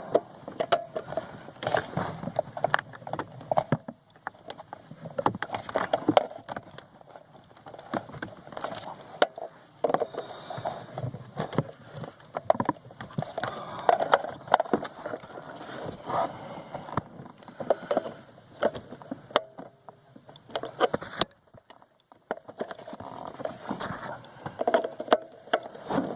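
Irregular plastic clicks, knocks and scraping as hands work a body control module and its wiring connectors loose under a car's dashboard.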